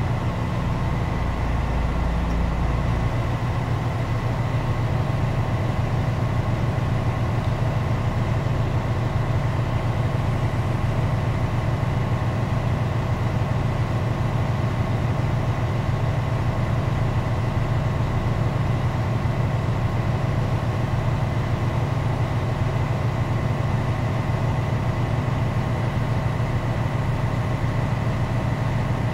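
2022 Freightliner truck's diesel engine running steadily at about 1200 RPM, held there on the gas pedal to build air brake pressure toward governor cutout, heard from inside the cab. The engine note steps up about three seconds in and then holds steady.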